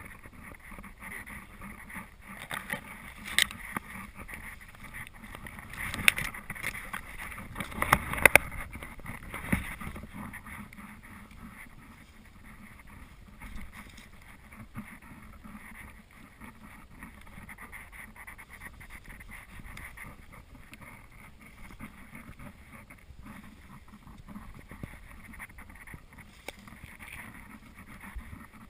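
Footsteps and dry grass rustling and brushing against legs and clothing as someone walks through tall dry grass and brush. There is a louder run of crackling and snapping about six to eight seconds in.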